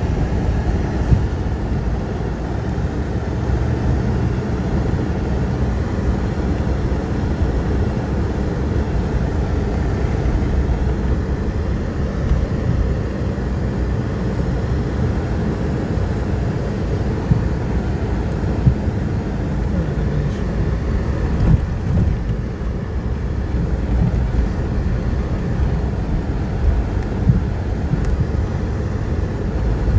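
Inside a moving car on a snow-covered road: a steady low rumble of engine and tyres, with a few short bumps in the second half.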